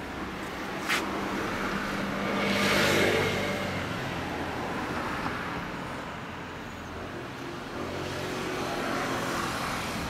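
Honda VTR250's 90-degree V-twin idling steadily through a WR'S aftermarket silencer. A sharp click comes about a second in, and a vehicle passes on the road, loudest about three seconds in.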